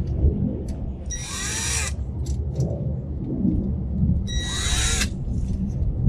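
Cordless drill/driver spinning spoke nipples tight on a laced hub-motor bicycle wheel: two short runs about a second long, each a whine that rises and falls in pitch. A steady low rumble lies underneath.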